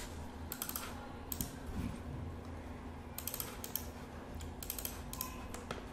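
Typing on a computer keyboard: irregular clusters of key clicks with short pauses between them, over a low steady hum.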